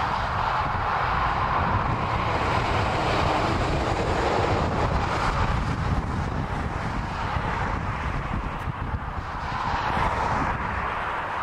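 Passing traffic on a dual carriageway: tyre noise and engines of cars, vans and a tanker lorry going by in a continuous roar that swells and eases slightly, with wind rumbling on the microphone.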